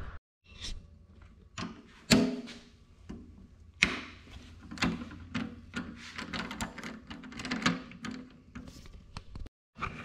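Hand ratchet and socket loosening the bolt that holds the back of a motorcycle's fuel tank: a run of irregular metallic clicks and knocks.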